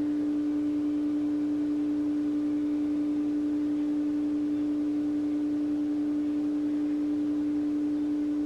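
A steady, unchanging hum: one low-middle tone with fainter overtones above it and no breaks.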